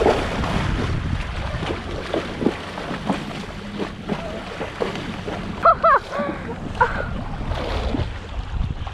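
A pony's legs wading and sloshing through shallow lake water, with wind rushing on the microphone. A brief high call is heard about six seconds in.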